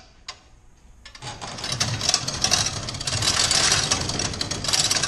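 Metal roll-up garage door rattling as its slats are rolled along the track. It starts about a second in and builds into a dense, steady clatter.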